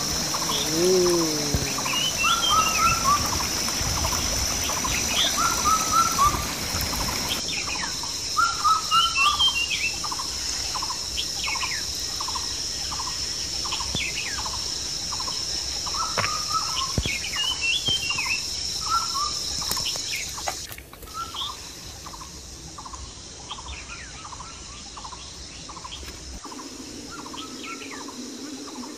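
Small birds chirping over and over, short rising-and-falling calls about once a second, over a steady high insect drone and the hiss of a running mountain creek.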